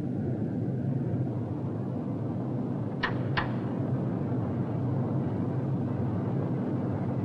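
Steady drone of a B-17 Flying Fortress's Wright Cyclone radial engines in flight, with two sharp clicks about three seconds in, less than half a second apart, as cockpit switches are thrown.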